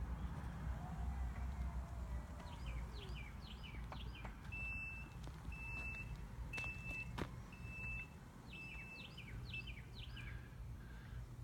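Mobility scooter's warning beeper giving six steady high beeps about a second apart, like a truck's reversing alarm. Birds chirp throughout, over a low outdoor rumble.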